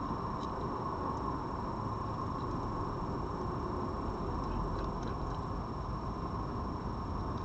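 Steady low background noise with a faint high steady tone. A few faint, short crunching clicks come from a red fox eating dry food from a bowl.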